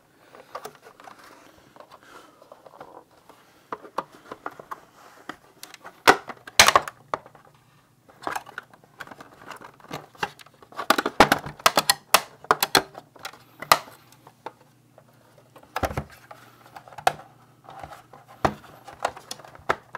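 Black plastic case of a Fleshlight Launch being pried apart by hand, its snap-fit clips and shell halves clicking, creaking and cracking in irregular clusters of sharp clicks.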